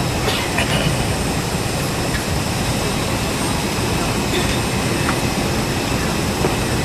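Steady rushing hum inside the cabin of an Airbus A320 parked at the gate, from the air-conditioning and the auxiliary power unit before the engines are started, with a few faint light clicks about half a second in.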